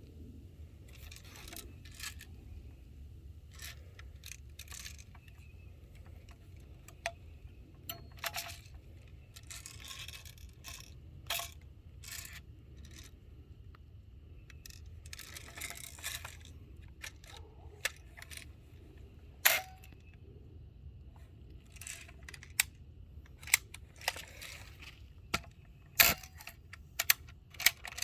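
Handling noise close to a phone's microphone: scattered clicks, light rattles and rubbing as the phone is moved and tucked out of sight, over a faint low rumble. The clicks come sharper and closer together near the end.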